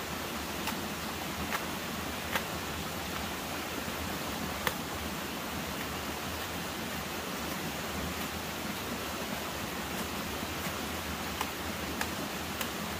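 Steady rushing noise like running water, with a few faint, irregular knocks of a machete striking a fallen tree trunk.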